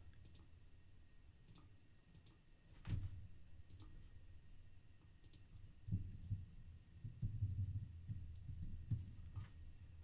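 Faint, scattered clicks of a computer keyboard and mouse during code editing, with one louder click about three seconds in and a few low thuds later on.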